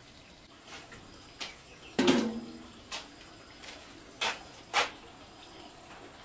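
Scattered knocks and clicks of objects being handled, about six in all. The loudest, about two seconds in, rings on briefly with a low tone.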